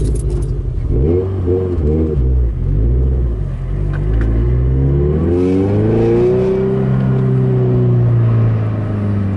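Turbocharged Scion FR-S flat-four engine pulling away in first gear: a few short rises and falls in revs at first, then the revs climb steadily for a few seconds and level off, easing slightly.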